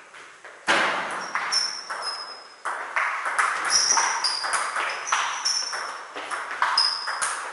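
Table tennis rally: the celluloid ball clicking off the rubbers and bouncing on the table in quick alternation, about two to three hits a second, starting under a second in. Many of the hits carry a short high ping.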